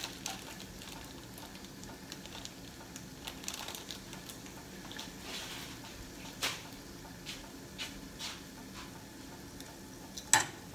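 Soft, steady sizzle of onions and cheese-topped rye bread frying in skillets, with a few light clicks and one sharp clack of metal tongs against the pan near the end.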